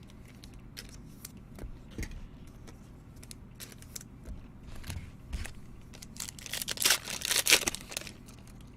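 Trading cards and their packaging being handled: scattered light clicks and taps, then a denser run of crinkling and tearing from about six and a half to eight seconds in.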